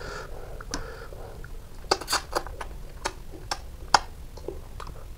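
Close-up eating sounds: sharp wet mouth clicks and smacks while chewing a handful of boiled fish and rice, about half a dozen clustered in the second half.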